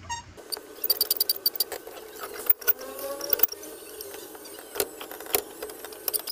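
Metal clicks, taps and scrapes of a screwdriver working on the steel column-shifter linkage, with a short rising squeak about three seconds in, over a steady hum.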